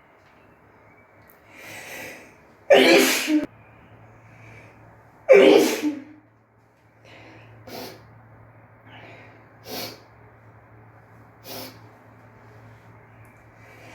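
A woman sneezing twice in quick succession: a drawn-in breath builds up, then two loud sneezes about two and a half seconds apart. Three short, quieter breaths follow, spaced about two seconds apart.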